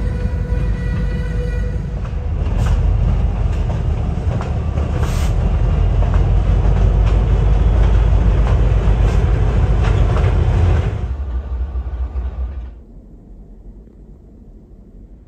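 Freight train passing close by: a loud, steady low rumble of Canadian Pacific diesel locomotives and covered hopper cars rolling on the rails, with a few sharp wheel clicks. The sound falls away sharply about eleven to thirteen seconds in, leaving a much quieter background.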